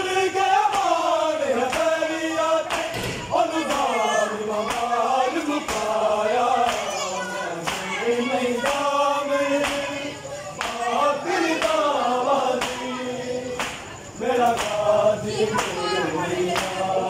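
A group of men chanting a noha, an Urdu lament, in unison, with a steady rhythm of chest-beating (matam) slaps keeping time.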